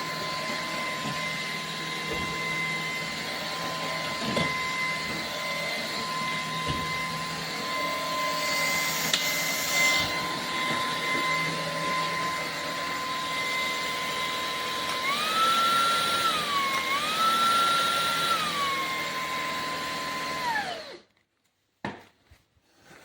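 Shark PowerPro IZ380EU cordless stick vacuum running with a steady high whine. Its pitch rises twice and drops back, and near the end the whine falls away as the vacuum is switched off.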